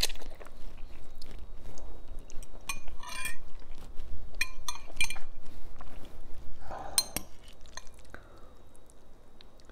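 A metal fork clinking and scraping against a glass bowl of ramen noodles, in clusters about 3, 5 and 7 seconds in, each clink ringing briefly, with chewing in between.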